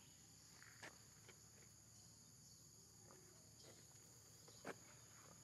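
Near silence: a faint, steady high-pitched insect drone, with a few soft clicks, the clearest near the end.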